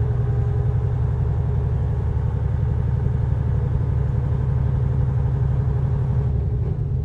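Semi truck's diesel engine running steadily at road speed, heard from inside the cab.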